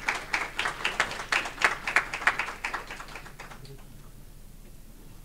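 A small audience applauding, with scattered, uneven hand claps that die away about three and a half seconds in.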